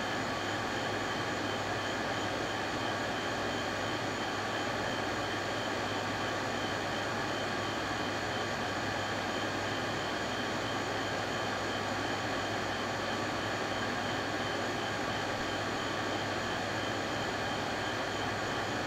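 Steady machine drone: an even hiss with several fixed tones held unchanged throughout, the sound of a motor or fan running in the room.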